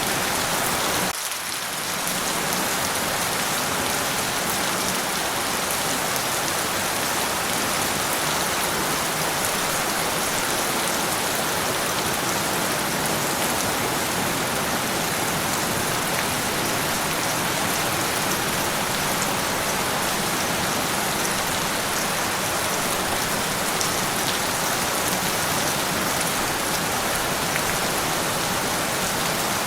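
Steady rain falling on a surface, a dense even hiss of drops with no thunder. About a second in, the low end briefly drops out and the level dips for a moment before the rain carries on unchanged.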